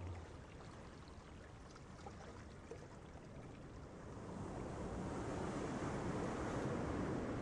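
Ocean waves washing in, a soft rushing surf that swells louder about halfway through.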